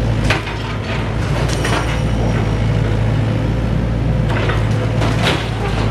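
SANY mini excavator's diesel engine running steadily under load while it works, with several sharp knocks and clatters from the machine and demolition debris.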